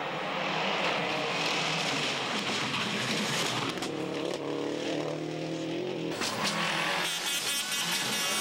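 Subaru Impreza WRC rally cars' turbocharged flat-four engines driven hard, the engine note rising and falling with throttle and gear changes as the cars pass. The sound changes abruptly about six seconds in and again about seven seconds in.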